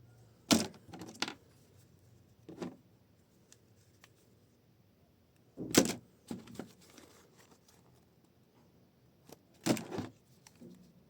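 Avengers toys clicking and clacking as they are handled, in three short clusters of sharp knocks about four seconds apart, with a single smaller knock between the first two.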